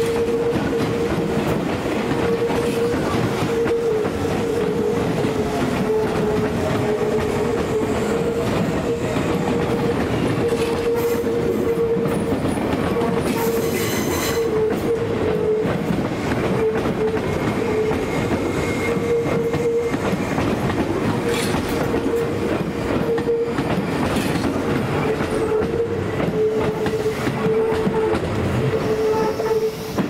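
Tobu electric commuter train running close by, its wheels clattering over the rail joints with a steady whine throughout.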